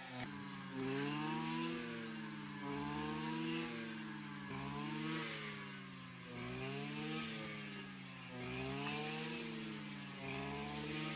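Small petrol engine revving up and down over and over, its pitch rising and falling about every two seconds.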